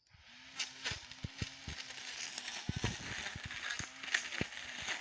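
Battery-powered grass cutter running, a steady electric hum, with a constant crackle and snapping of grass stems being cut.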